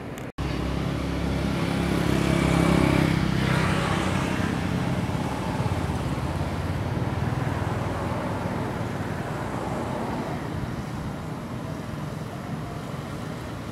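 A motor vehicle drives past on a road. Engine and tyre noise swells to its loudest about three seconds in, then slowly fades.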